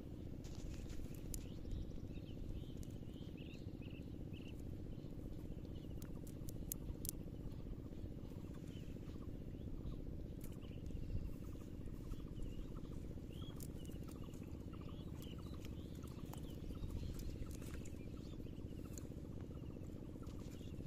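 Cast net being handled on sand: soft rustles and scattered sharp clicks over a steady low rumble, with faint high chirps now and then.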